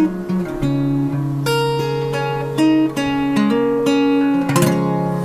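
Instrumental background music: plucked, ringing notes over a held low note.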